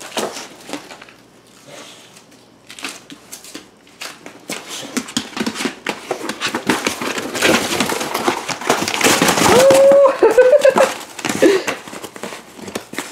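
Pit bull tearing and chewing a cardboard box: separate rips and crunches of cardboard at first, building to loud, almost continuous ripping in the second half. A short pitched whine-like sound comes about nine to eleven seconds in.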